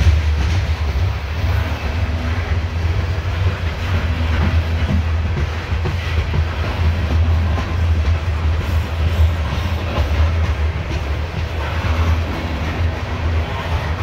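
Loaded CSX coal hopper cars rolling past close by: a steady low rumble of steel wheels on the rails, with some clacking over the rail joints.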